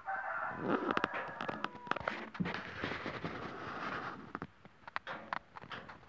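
A rooster crowing near the start, then a few seconds of clattering clicks and knocks.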